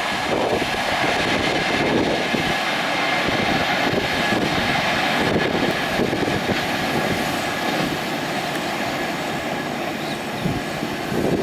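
Steady rushing roar of a high-speed train's LHB coaches and the air wake behind them at about 150 km/h, easing slightly toward the end.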